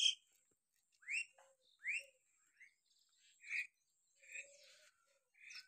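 Birds calling: short upward-sweeping chirps, roughly one a second, with other bird calls between.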